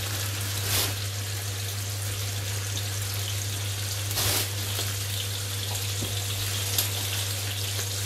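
Ham slices sizzling in a frying pan on an induction hob, a steady hiss with a low steady hum underneath. Two short louder noises stand out, about a second in and at about four seconds.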